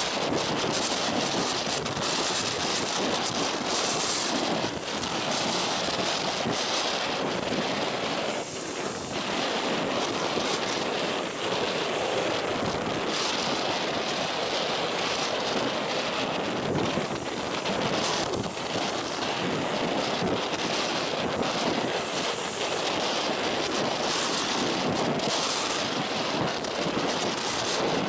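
Strong storm wind buffeting the microphone over the steady rush of heavy surf breaking on the shore and against the breakwater.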